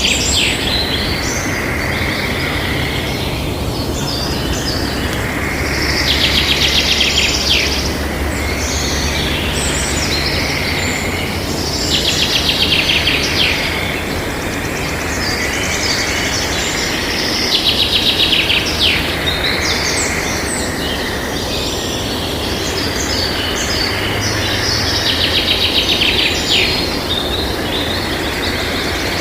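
A songbird singing a rapid trilled phrase about a second and a half long, repeated every five to six seconds, with scattered chirps in between, over a steady low hum.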